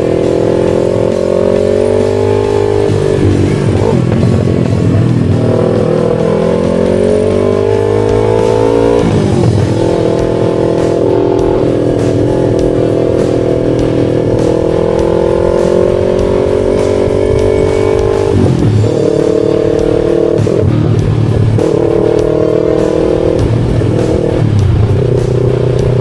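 Yamaha R3 parallel-twin motorcycle engine under way, its pitch climbing steadily and dropping sharply at each gear change: around three and nine seconds in, then several quicker changes in the last third.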